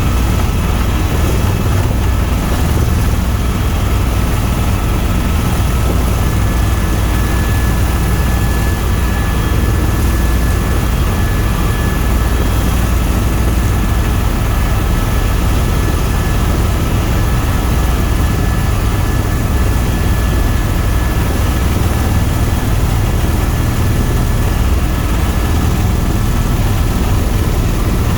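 Tour helicopter in flight: a loud, steady drone of the rotor and turbine engine, with a faint high steady whine over it.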